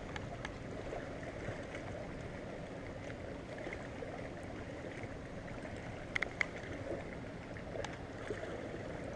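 Steady open-water ambience from a boat on a lake: water lapping against the hull, with a faint low hum underneath. There are a couple of light clicks about six seconds in.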